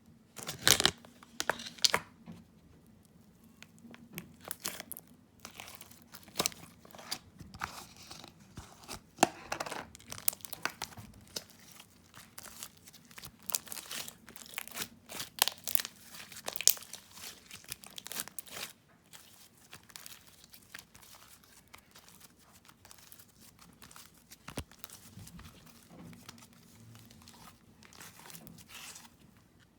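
Homemade glue-and-borax slime, mixed with clay, being squished and pressed by hand, giving irregular sticky crackles, pops and clicks. The crackling is busiest for about the first two-thirds, then thins out.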